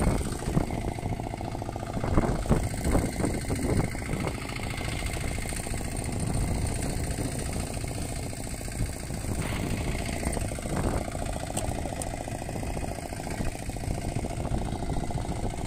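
Fishing boat's engine running steadily at idle, with a few short knocks and clatter on the boat.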